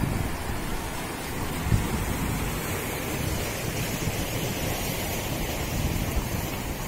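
Sea surf washing in on a rocky shore, with wind gusting on the microphone, and one brief low bump nearly two seconds in.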